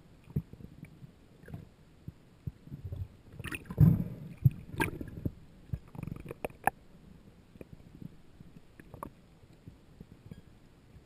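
Muffled underwater knocks, sharp clicks and rushing water as a speared Atlantic bonito is hauled in on the shooting line and grabbed, with the loudest rush and knock about four seconds in.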